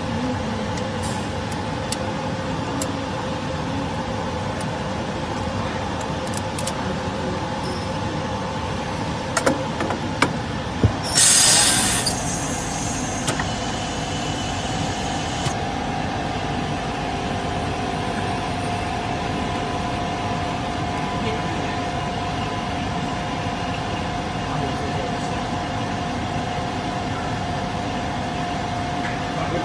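YMJ vacuum laminating machine running with a steady mechanical noise. A few sharp clicks come about nine to eleven seconds in, then a loud burst of air hiss lasting about a second, trailing off more faintly over the next few seconds. After that a steady hum tone carries on under the running noise.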